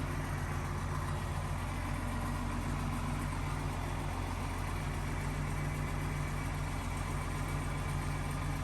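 Bulldozer's diesel engine idling steadily, with an even, unchanging low rumble.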